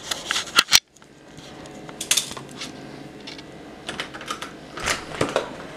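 Handling noise from a camera carried while walking: scattered light clicks and knocks, with a sharp click and a brief dropout to silence under a second in.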